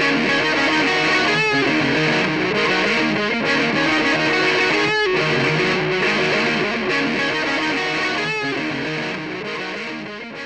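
Distorted electric guitar music, layered guitar parts played through a MOOER GE100 multi-effects processor's looper, with strummed chords now and then; it fades out over the last couple of seconds.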